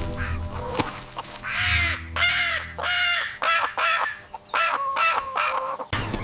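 A run of about a dozen short bird calls, quick and closely spaced, over a steady low background tone.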